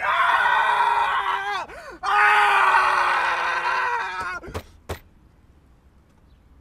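A man screaming at the top of his voice: two long, loud held screams with a brief break between them, followed by two sharp knocks.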